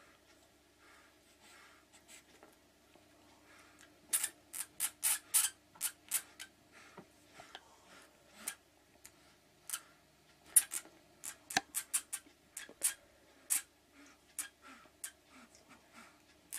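Claws scratching and scrabbling on a hard floor in quick, irregular clusters of sharp scrapes, starting about four seconds in, as a cat plays with a caught mouse.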